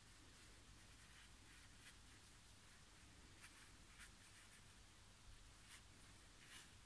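Faint, short scratching strokes of a paintbrush working paint onto watercolour paper, about five strokes spread unevenly, over a low steady hum.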